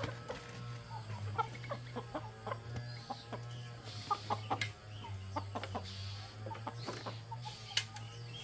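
Domestic chickens clucking, many short irregular clucks with a few sharper, louder calls, over a steady low hum.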